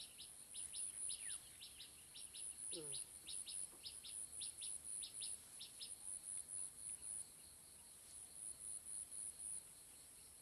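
Insects calling: a steady high-pitched pulsing buzz, with a sharp chirp repeated about three times a second that stops a little past halfway.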